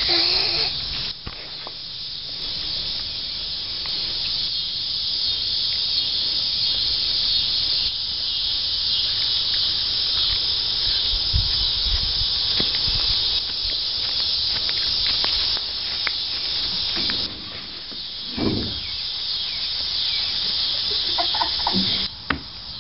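Steady high-pitched chorus of evening insects such as crickets, without a break until it drops out near the end.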